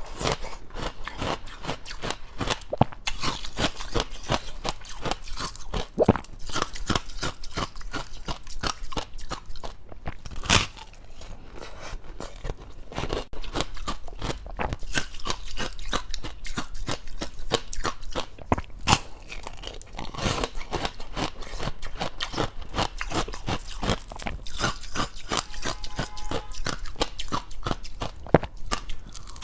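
Close-up crunching and chewing of dry, powdery freezer-frost ice: a dense, continuous run of small crackling crunches, with a few louder bites.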